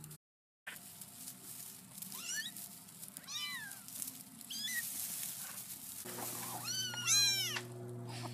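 Young kittens mewing: high, thin mews that rise and fall, a few spaced ones, then a louder bunch of several close together about seven seconds in. A low steady hum joins about six seconds in.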